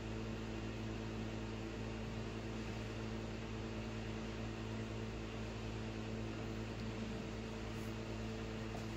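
Steady low hum made of several held tones, over a faint even hiss: the room's background tone. No knife strokes on the soap stand out from it.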